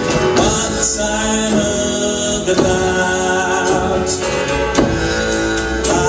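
Live band music with a singing voice over sustained instrument tones, keyboard and electric guitar among them, and drum strokes every second or so.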